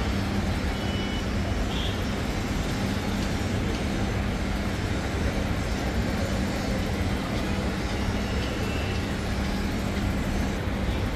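Steady road traffic noise of a busy city street, with a constant low hum under it. A few short, faint high tones come about half a second in and again near nine seconds.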